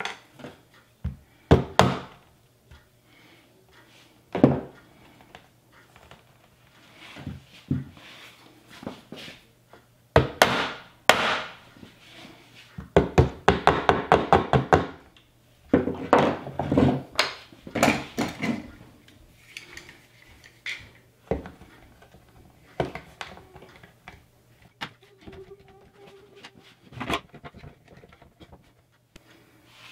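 A small hammer tapping a piece of wood on a cabinet door frame, with a quick run of light taps in the middle, among scattered knocks and clicks of tools handled on a wooden workbench.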